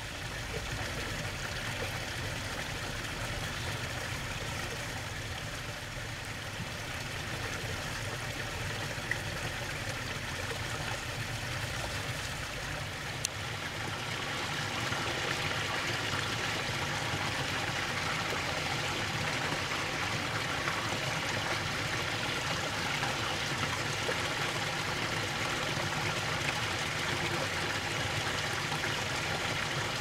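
Pond waterfall running steadily, its water splashing down beneath a dome of ice; it grows slightly louder about halfway through.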